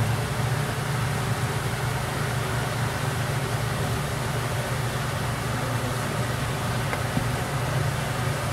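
Steady low mechanical hum with an even hiss over it, the constant machinery noise of an aquarium exhibit hall.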